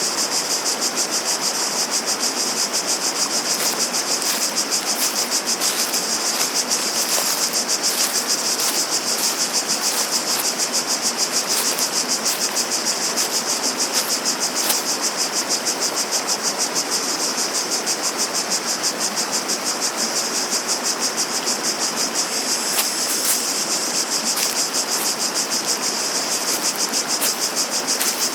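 Cicadas chorusing, a high, rapidly pulsing buzz that keeps up without a break, over a steady rushing hiss of running water.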